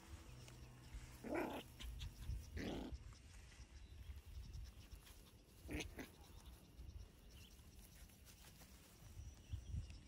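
Poodle puppy making three short, faint sounds, the last a few seconds after the first two.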